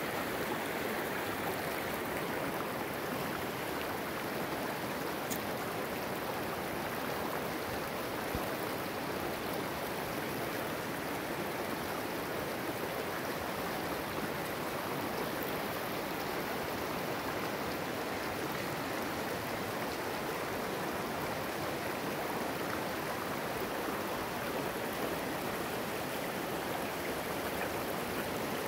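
A river rushing over rocks, a steady even rush of flowing water.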